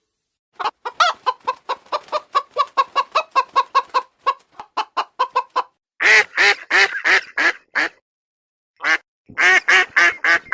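A chicken clucking in a quick series of short clucks, about five a second. From about six seconds in, louder quacking duck calls follow in two runs.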